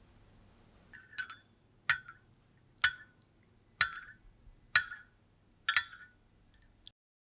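Six sharp clinks, evenly spaced about a second apart, then a couple of faint ticks near the end.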